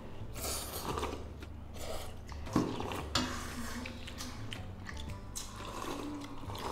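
A child eating fried noodles: slurping them up and chewing, with small irregular clicks of wooden chopsticks against a ceramic bowl.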